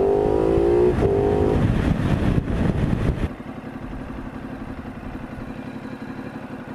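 Ducati Multistrada 950's L-twin engine on its stock exhaust, its note falling twice as the bike slows under heavy wind noise. About three seconds in the wind dies away and the engine settles into a steady, evenly pulsing idle with the bike stopped in neutral.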